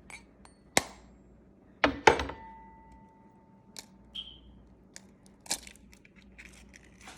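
An egg knocked sharply against the rim of a bowl, three knocks in the first two seconds, the loudest setting the bowl ringing for over a second. Then a few faint clicks as the shell is cracked open.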